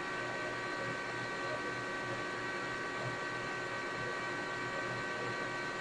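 Metal lathe running with the spindle and chuck turning and no cut being taken: a steady hum with several steady high-pitched tones from the drive.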